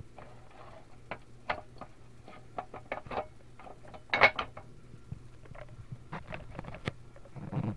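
Scattered clicks and light knocks of heavy diecast metal toy construction vehicles being handled, with a louder clatter about four seconds in.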